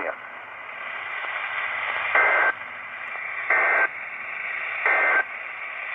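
NOAA Weather Radio receiver hissing with static, then three short, identical bursts of EAS digital data tones about 1.3 seconds apart. These are the SAME End of Message code that closes a severe thunderstorm warning.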